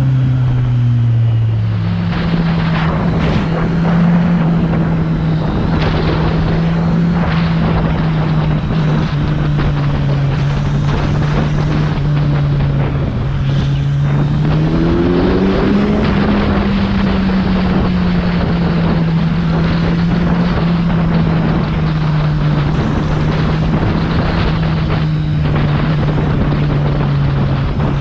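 Kawasaki Z900's inline-four engine running at steady cruising revs under way, with wind rushing over the microphone. The engine note shifts near the start and rises briefly about halfway through, then holds steady again.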